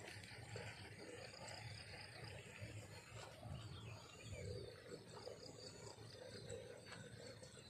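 Faint field ambience: insects giving a steady high-pitched trill, over a low uneven rumble.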